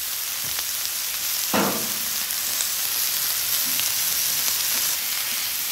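Shrimp, fried rice and vegetables sizzling on a hot 36-inch flat top griddle, a steady frying hiss. There is one brief knock about a second and a half in.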